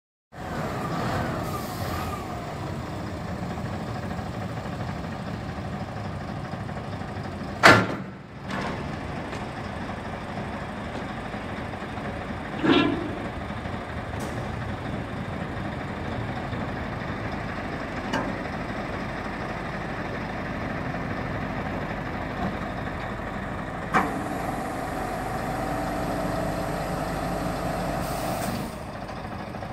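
Scania tipper truck's diesel engine idling steadily, with a few sharp knocks over it, the loudest about eight seconds in.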